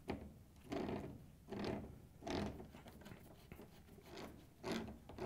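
Pliers gripping and turning the metal coupling nut of a washing machine fill hose onto its threaded inlet valve port, tightening it down for a watertight seal: a series of short scraping, grinding turns, several in a few seconds.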